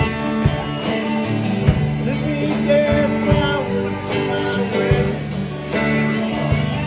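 Live band playing a country-rock song: strummed acoustic guitar and electric guitar with a melody line bending in pitch, over drums with irregular kick hits.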